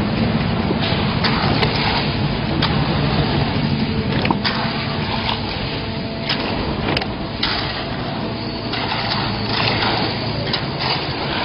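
Concrete mixer pump running steadily under load, with a low machine hum and irregular sharp knocks and clacks.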